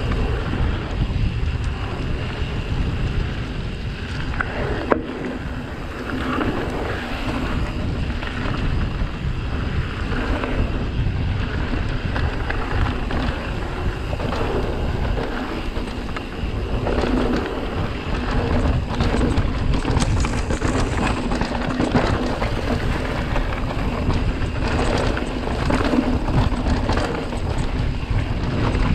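Mountain bike riding a rough trail, heard through an action camera: wind noise on the microphone over a steady rumble of tyres and rattling of the bike, with one sharp click about five seconds in.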